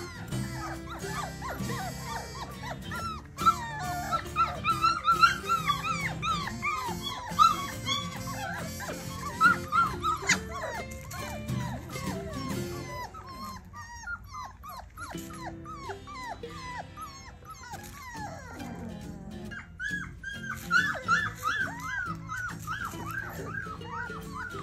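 Four-week-old Bernedoodle puppies whining and yipping in many short, rising-and-falling cries, with a lull in the middle and a dense run again near the end, over background music.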